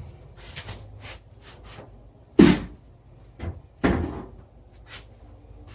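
Several hard knocks and lighter clicks from tiles and tools being handled against the wall, the loudest about two and a half seconds in and another near four seconds.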